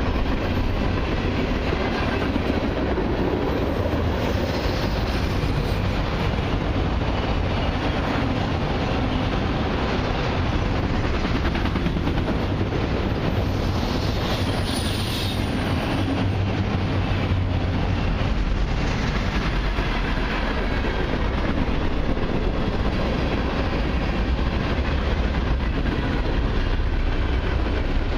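Freight cars of a long mixed freight train rolling past close by: steady noise of steel wheels on the rails, holding level throughout.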